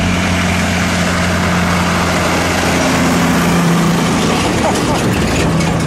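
Heavy truck engine running steadily, a low one-pitch drone under a loud wash of noise.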